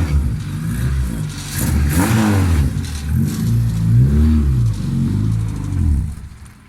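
Car engine revving up and down several times in quick blips, then falling away near the end.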